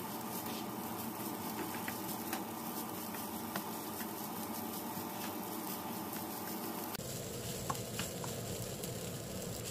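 Egg fried rice stir-frying in a nonstick wok: a steady sizzle, with a few light taps and scrapes of the spatula against the pan as the rice is tossed and its clumps broken up.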